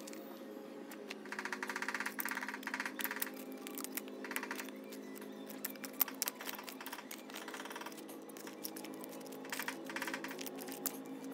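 Hand trowel scraping through stony soil, with pebbles clicking and rattling against the steel blade in several bursts of rapid clicking and a sharper click about six seconds in.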